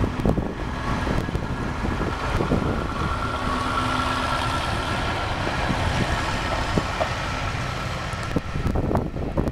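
KiHa 52 diesel railcar moving off past the platform, its diesel engine running with a steady low rumble. A thin high whine sits over it for a few seconds in the middle. Wind buffets the microphone.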